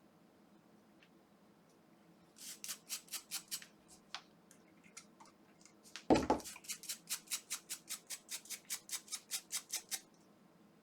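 Brisk back-and-forth scrubbing strokes on a corroded, liquid-damaged circuit board, about five or six a second, in a short run and then a longer one. A single loud knock comes about six seconds in, just before the second run.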